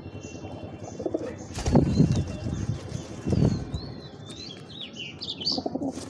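Pigeons' wings flapping close by in two loud bursts, the first about a second and a half in and the second about a second later. Small birds chirp in the background near the end.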